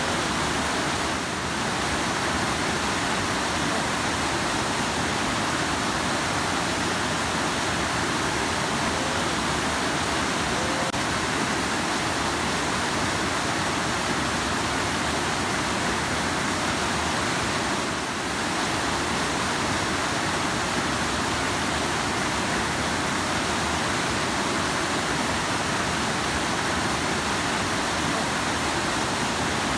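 Rushing river water making a steady, dense rush, dipping slightly twice, once about a second in and again about 18 seconds in.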